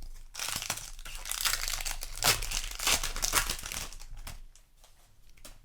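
Foil Magic: The Gathering play booster wrapper crinkling and tearing as it is handled, for about four seconds, then dying away.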